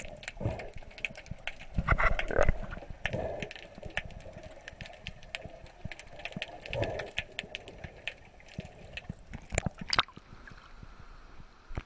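Sea water heard through a camera held underwater: a steady crackle of small clicks with bursts of bubbling and gurgling, then a few sharp splashes as the camera breaks the surface about ten seconds in.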